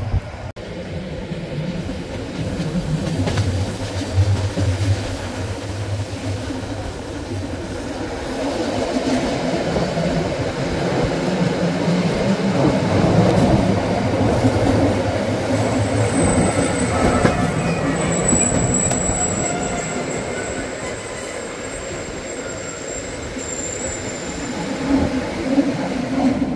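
Rhaetian Railway metre-gauge passenger train running, heard from a carriage window: a steady rumble of wheels on the rails, with high-pitched wheel squeal on the curves, strongest in the second half.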